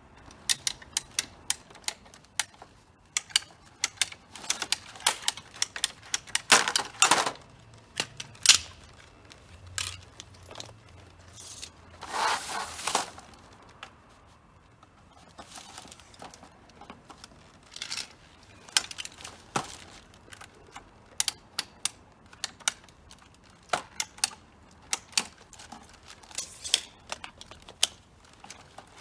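Irregular sharp metallic clicks and knocks of hand tools at work on an air-conditioner installation, with a short rough, noisy burst about twelve seconds in.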